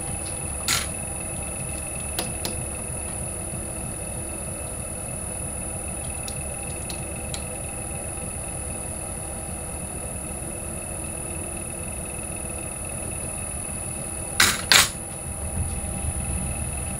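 Digital calipers and hand tools being handled around a metal lathe's chuck: a few light clicks and taps over a steady low hum, with two sharp knocks close together near the end.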